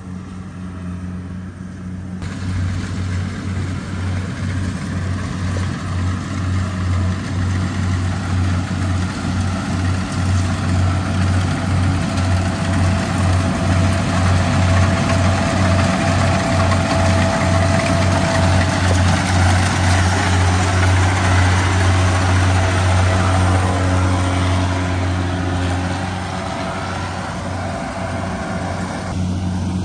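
Diesel engine of a rice combine harvester running as it cuts the field: a steady low drone with a rapid pulse and a haze of machine noise. It grows louder over the first dozen seconds and eases off near the end.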